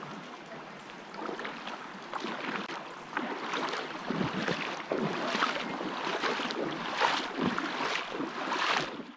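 Creek water rushing and splashing over rocks, with irregular louder splashes that become denser and louder from about three seconds in.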